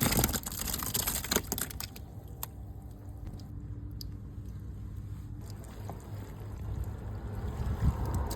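Grifo DSM grape destemmer-crusher running: a steady low motor hum with wet, sloshing crushing noise and scattered clicks, and a louder rush of noise in the first second and a half.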